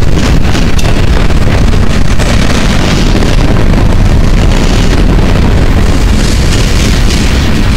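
Freight train cars rolling past: a loud, steady rumble of steel wheels on rail with light clicking, and wind buffeting the microphone.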